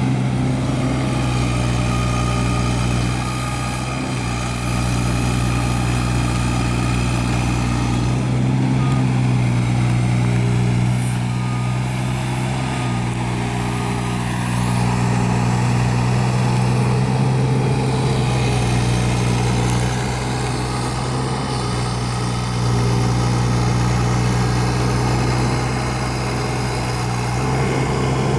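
Kubota U-17 mini excavator's three-cylinder diesel engine running steadily, its loudness and note shifting a little every few seconds.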